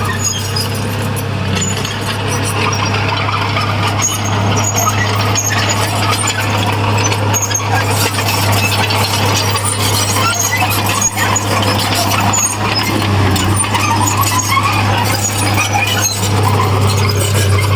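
Heavy diesel earthmoving machinery running steadily with a constant low drone.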